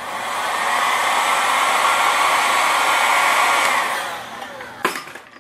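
Chicago Electric heat gun blowing hot air onto heat-shrink tubing over a soldered wire joint: a steady blowing rush with a faint whine that builds as it is switched on, runs for about four seconds, then winds down with a falling whine. A single knock follows near the end.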